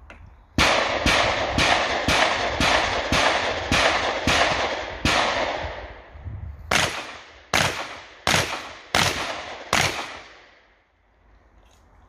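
Shotgun fire in a practical shooting stage: a quick string of about eleven shots, roughly two a second, each with a ringing echo off the range, then a break of about a second and a half and five more shots at a slightly slower pace.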